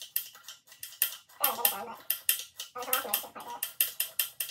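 Irregular metallic clinks and taps of hand tools and engine parts as a cylinder head is being taken apart, with a voice talking indistinctly at times.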